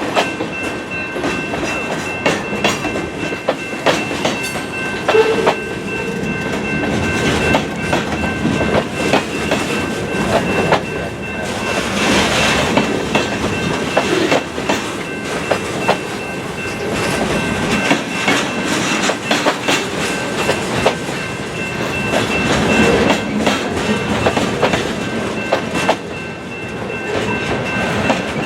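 Conrail freight train rolling past, its steel wheels clicking and clacking irregularly over the rail joints amid steady rumbling rail noise.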